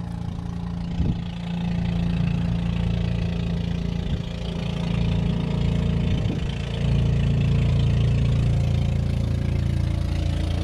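Motorized outrigger fishing boat's engine running steadily as the boat passes, a little louder about two thirds of the way in.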